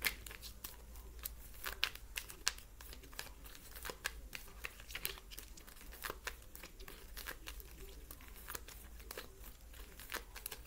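A deck of cards being shuffled by hand: a steady run of quick, irregular papery clicks and flicks.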